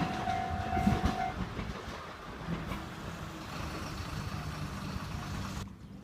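JR West 105 series electric train running past on the rails, its rumble and wheel clatter fading as it moves away, with a steady tone that stops about a second in. The sound drops off abruptly near the end.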